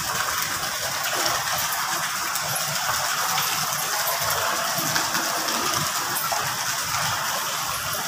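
Steady splashing and trickling of water in a fish pond.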